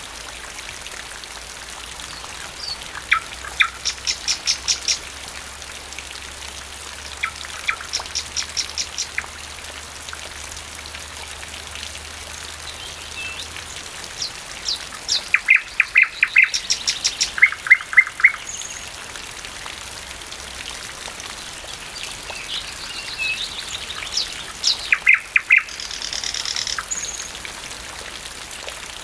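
Thrush nightingale singing over steady rainfall: four phrases of fast, evenly repeated notes with pauses between them, the loudest phrase about halfway through.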